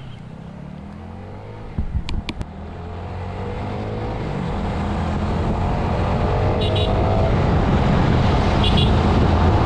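A motor vehicle engine running, with a few sharp clicks about two seconds in. It then pulls away, rising in pitch and growing steadily louder.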